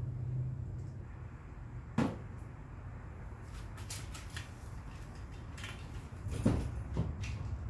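Scattered clicks and knocks from handling a portable jump starter's clamps and cable at a car battery, with one sharp click about two seconds in and a louder knock near the end. A low hum stops about a second in.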